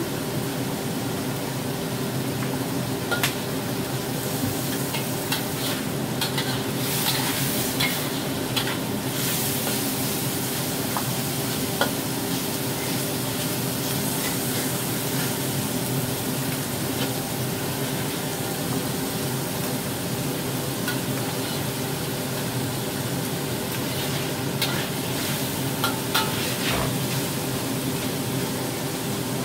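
Pork belly and dried tofu sizzling in a hot wok while a spatula stirs and scrapes through them, with scattered clicks of the spatula against the wok over a steady hum.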